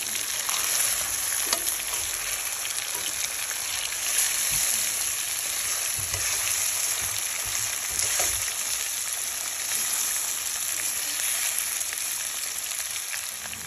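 Seasoned oxtail pieces sizzling steadily as they brown in hot oil in a pot, with a few faint pops now and then.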